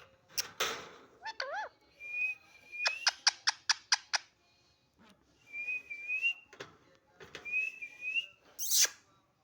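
Pet talking parrot whistling and calling: a short warbling whistle repeated three times, with a loud harsh call about half a second in, a quick run of about six clicking chirps a little after three seconds, and a shrill screech near the end.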